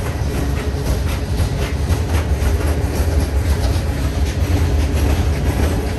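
Freight cars of a passing mixed freight train rolling by at steady speed: a loud, continuous low rumble of steel wheels on the rails with repeated clicks.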